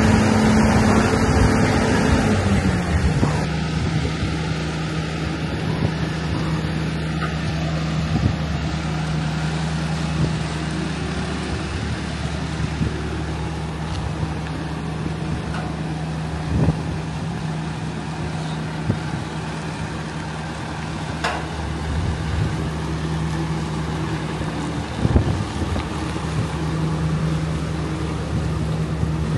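Engine of the boatyard lift running steadily as it hauls a sailboat out of the water; its pitch drops slightly about two and a half seconds in, with a few clunks later on.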